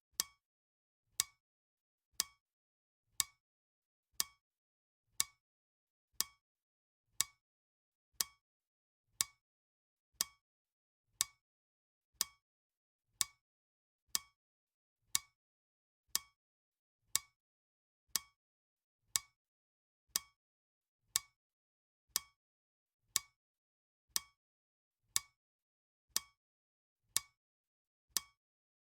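Clock ticking steadily at one tick per second, each tick a short, sharp click, all alike: the ticking sound effect of a countdown timer.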